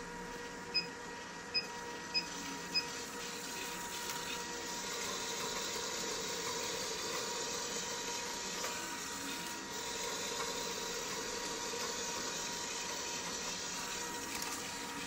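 Endospheres body-contouring machine running: the motor of the inner-roller-ball handpiece whirs with a steady hum, getting a little louder about four seconds in. Early on, four short electronic beeps sound as the intensity setting is stepped up.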